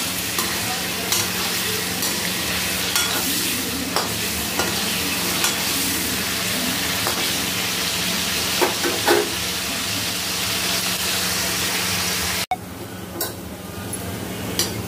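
Potato pieces sizzling as they fry in ghee in a steel kadhai, with a metal slotted spatula scraping and clinking against the pan now and then. Near the end the sizzle drops suddenly and goes on more quietly.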